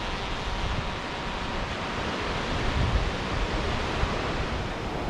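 Steady rushing of small waves on the shore, with wind buffeting the microphone in low rumbles.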